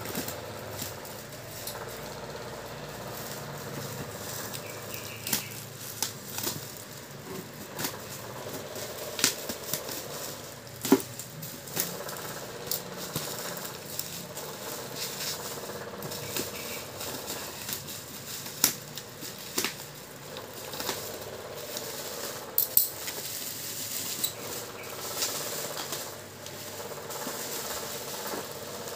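Scissors snipping through packing tape and black plastic wrap on a parcel, with plastic crinkling and tape tearing in irregular bursts, over a faint steady hum.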